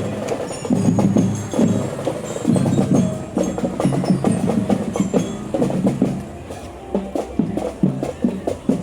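School marching drum band playing a tune on drums and mallet percussion.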